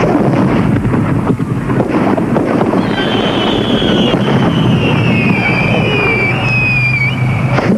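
Fireworks display: a steady wash of noise, with a long whistle from about three seconds in that slowly falls in pitch for some four seconds, then a sharp bang near the end.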